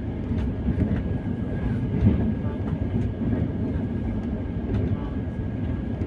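Express passenger train running at speed across a river bridge, heard from inside the coach: a steady low rumble of wheels on rails, with a few faint clicks and a faint steady high tone above it.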